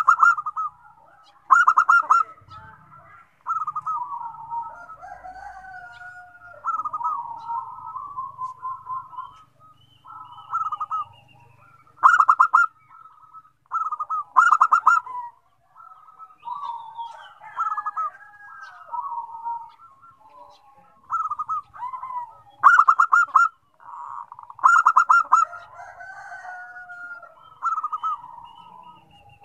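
Zebra doves (perkutut) cooing back and forth, a phrase every couple of seconds. Some phrases open with a quick rattling run of clipped notes, and others are soft rolling, warbling coos that at times overlap one another.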